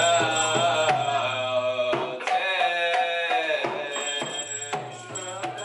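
Devotional chanting music: a sung melody over drums and percussion, fading out steadily.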